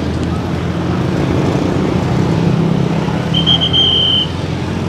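Motorcycles and cars passing close by with their engines running, a steady low traffic hum. A short high-pitched beep sounds a little over three seconds in.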